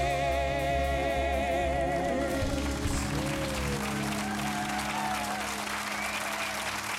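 A song ends on a long sung note with vibrato, held over the band's final chord. About two and a half seconds in, audience applause takes over.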